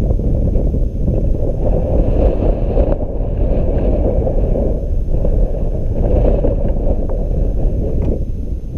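Wind buffeting the microphone of a kayak-mounted camera: a loud, steady low rumble.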